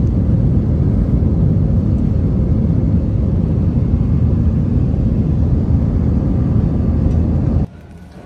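Airliner cabin noise: the jet engines and airflow make a loud, steady, deep rumble that cuts off suddenly near the end.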